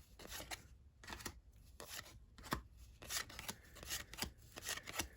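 Cardboard trading cards being flipped and slid over one another by hand: a run of short, irregular scrapes and clicks.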